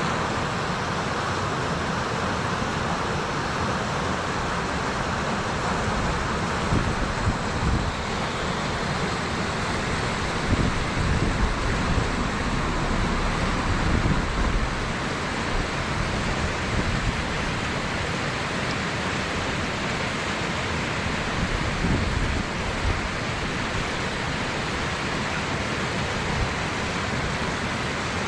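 Steady rushing of water from a cascading waterfall, an even hiss with an uneven low rumble underneath.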